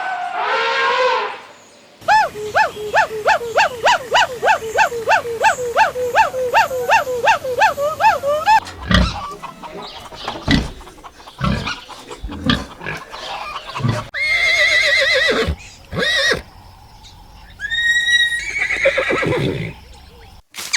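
A string of farm-animal calls. The first is short. About two seconds in, a run of evenly repeated rising calls follows at roughly three a second and lasts some six seconds. Scattered low thumps and further high calls come in the second half.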